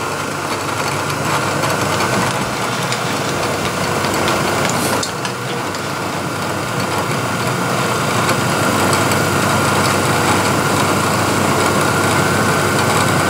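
Milling machine spindle running steadily, spinning an edge finder that is being brought against the side of the workpiece to locate its centre. A steady higher whine joins about five seconds in.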